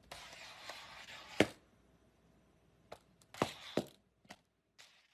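About six sharp taps and knocks on a hard surface, irregularly spaced, the loudest about a second and a half in, with a faint hiss underneath for the first second and a half.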